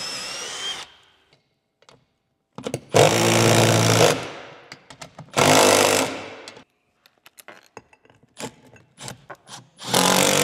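A cordless drill spins briefly at the start, finishing a pilot hole, and stops. A Milwaukee Fuel cordless impact driver then hammers lag bolts through a steel mounting bracket into wood blocking, in bursts of about a second each: one about 3 seconds in, one about 5.5 seconds in, and a third starting near the end. Small clicks and taps come between the bursts.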